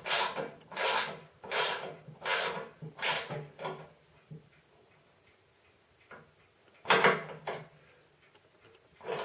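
Ratchet wrench tightening a bolt: about six short rasping ratchet strokes at an even pace that stop about four seconds in, then two brief sounds near the end.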